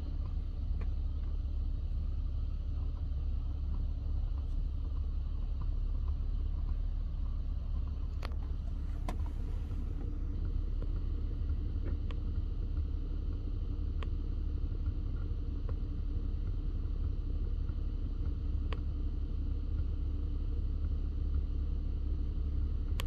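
Steady low cabin rumble of a 2013 Audi S5 B8.5 running, with a few small, sharp clicks from the dashboard at irregular intervals. The clicking is intermittent, and the owner suspects something shorted or loose behind the dash, the same fault he links to the driver's-side tweeter cutting in and out.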